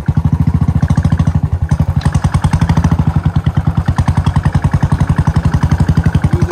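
Royal Enfield Bullet 350's single-cylinder engine running at low revs, a quick, even thumping that holds steady while the motorcycle rides a rough dirt track.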